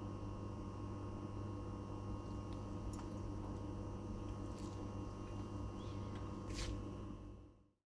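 Steady low electrical hum with a few light clicks of a metal fork and knife against a ceramic plate, the clearest one near the end. The sound fades out just before the end.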